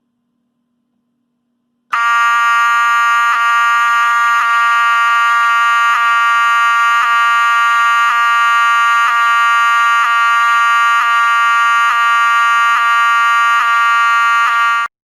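Wheelock 7002T-24 mechanical fire alarm horn (newer version) sounding a loud, steady, buzzing blare. It starts about two seconds in and cuts off abruptly just before the end.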